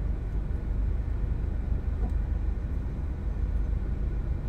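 Steady low rumble of a vehicle's engine and road noise heard from inside the cabin while driving in slow traffic.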